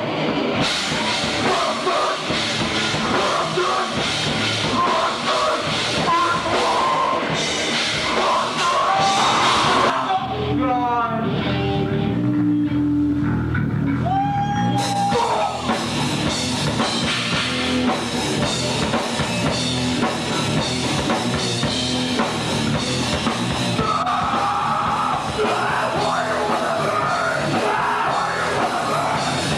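Live heavy metal band playing loud in a club, with distorted guitars, a drum kit and shouted vocals. About a third of the way in, the drums and cymbals drop out for around five seconds, leaving low sliding guitar notes, then the full band comes back in.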